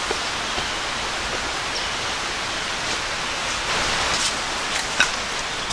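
Steady rush of flowing creek water and small waterfalls, an even hiss with no pauses, with a light tick about five seconds in.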